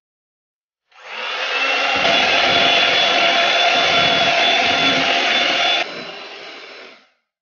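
Electric hand mixer whirring, its twin beaters whisking cake batter of eggs, milk and flour. It starts about a second in, runs steadily, drops to a lower level about six seconds in, and stops near the end.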